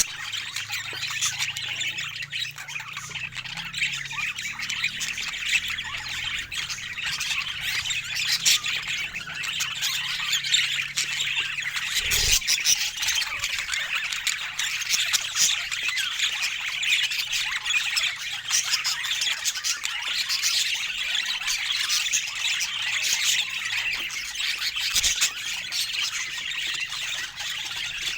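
A flock of budgerigars chattering and squawking continuously, a dense mass of overlapping chirps and warbles. Two brief low thumps sound, one about midway and one near the end.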